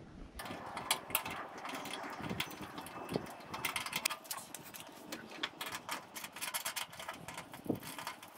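Needle-nose pliers and small tools working a rusted nut and screw on a grill lid's thermostat mount: an irregular run of light metal clicks and ticks with faint scraping.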